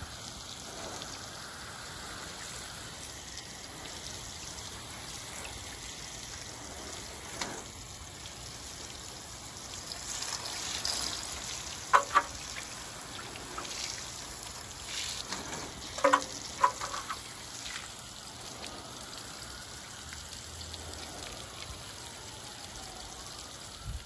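Water spraying onto solar panels and a galvanized metal roof: a steady hiss and spatter. A few short, sharp clicks come about halfway through and again about two-thirds of the way.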